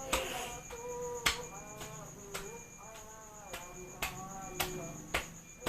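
Cupped hands clapping on a patient's back over a towel: chest-physiotherapy percussion to loosen phlegm. Six or seven sharp slaps, roughly one a second.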